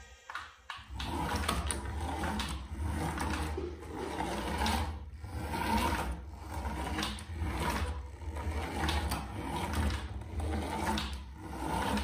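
Small electric motor and plastic gearbox of a toy RC car whirring as it drives, the whirr swelling and dropping away in short spurts as the car starts, stops and changes direction.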